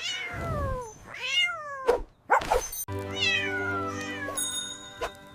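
A cat meowing several times, each call sliding down in pitch, over music that holds a steady chord in the second half. There is a short knock about two seconds in.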